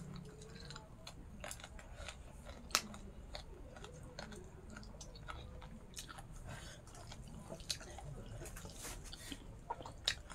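People chewing rice and pork, with irregular small clicks and crunches.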